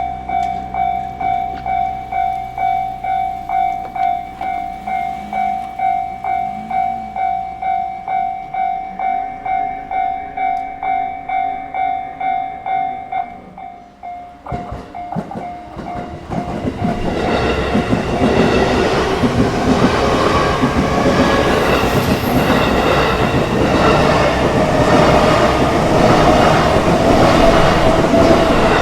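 Japanese level-crossing alarm bell ringing steadily at about two strokes a second, fading out about 13 seconds in; from about 16 seconds a JR Ome Line electric train passes through the crossing with loud rumbling and wheel clatter.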